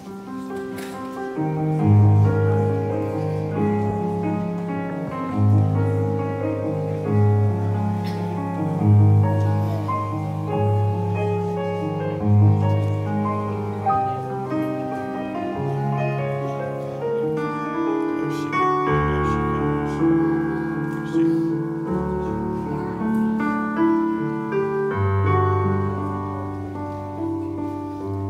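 Solo piano playing a slow, gentle piece, with steady low bass notes under a higher melody, moving into a new passage about two-thirds of the way through.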